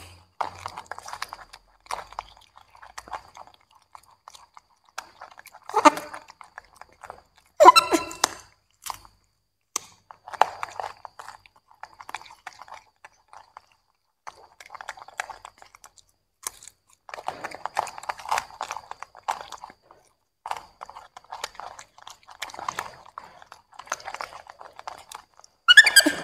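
Young macaques chewing broccoli and carrot pieces, with wet crunching in irregular bursts. Short pitched calls break in about six and eight seconds in, the second the loudest, and again near the end.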